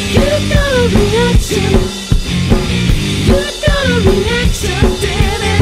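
Background rock song with a driving drum-kit beat and a sliding melodic lead line over it.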